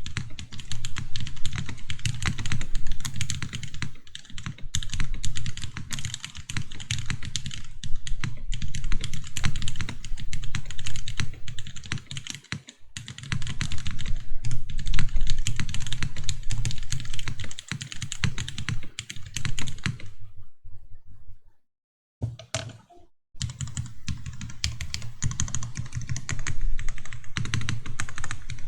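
Steady, fast typing on a Kalam TGR Jane V2 top-mount keyboard with lubed, spring-swapped Cherry MX Black linear switches on a carbon fibre plate, no dampening: a continuous run of keystrokes. The typing stops for a couple of seconds about three-quarters of the way in, then resumes.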